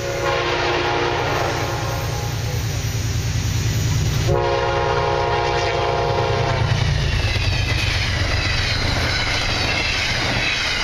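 Amtrak P32AC-DM diesel locomotive sounding its horn twice, a long blast and then a shorter one, as a warning for the grade crossing, over the low rumble of its engine. The passenger cars then roll past with steady wheel and rail noise.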